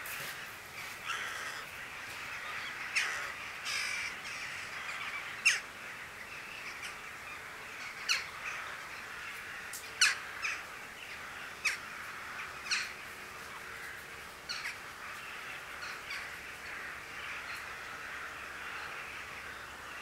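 Short, sharp bird calls, a dozen or so at irregular intervals, over a steady background hiss.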